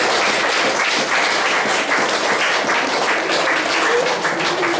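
A crowd of people clapping their hands in a steady round of applause.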